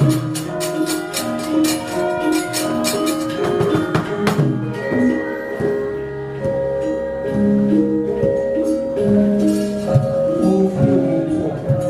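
Javanese gamelan orchestra playing, with bronze metallophone and gong notes in a steady interlocking pattern. During the first few seconds a rapid, even clicking runs over it at about four strikes a second, then drops away.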